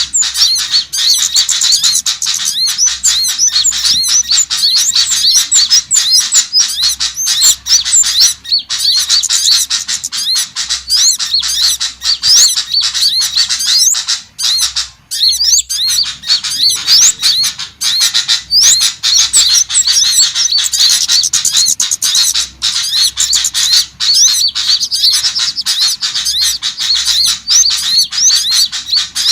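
Dense, unbroken chorus of small songbird calls: many rapid, high-pitched chirps and slurred whistles overlapping. This is a bird-lure (pikat) recording meant to draw in small birds.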